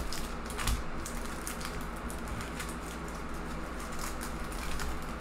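Foil wrapper of a trading-card pack crinkling and cards rustling as the pack is torn open and the cards are pulled out: a run of small, irregular crackles over a steady low hum.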